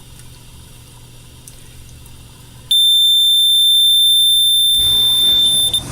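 A small battery-powered water leak alarm sounds a pretty loud, steady, high-pitched tone for about three seconds, starting about halfway through.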